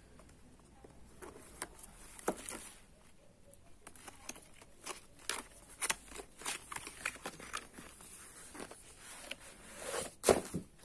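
Cardboard box and packaging being handled and opened: scattered taps, scrapes and rustles, with a louder knock about ten seconds in.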